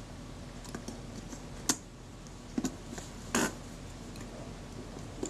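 Small metal clicks and taps from handling a Kodak Retina IIa leaf shutter mechanism while refitting its speed cam: a few single ticks, a quick double click and one short rattle.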